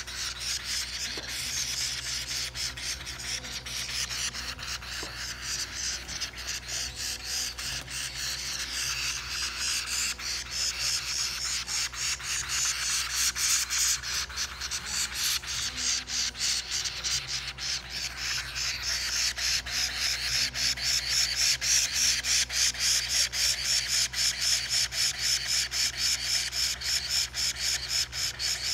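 Kulasisi (Philippine hanging parrot) nestlings giving raspy, rhythmic begging calls, a few rasping pulses a second, growing louder in the second half.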